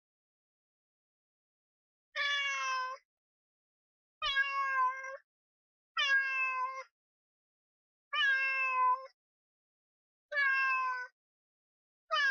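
Domestic cat meowing, one meow about every two seconds starting about two seconds in, five in all with a sixth beginning near the end; each meow is about a second long and falls slightly in pitch.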